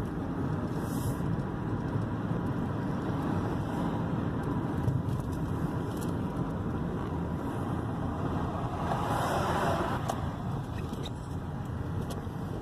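Steady engine and tyre noise inside a moving 2001 Toyota Corolla, with a brief rushing swell about nine seconds in.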